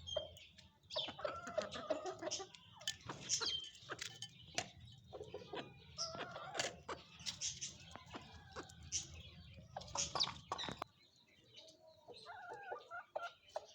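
Aseel chickens clucking and calling, mixed with many sharp clicks. A low hum under them cuts off about eleven seconds in.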